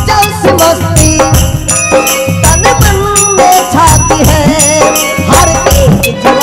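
Instrumental interlude of a live devotional bhajan: a melody line that bends in pitch plays over a steady drum beat, with rattling, jingling percussion.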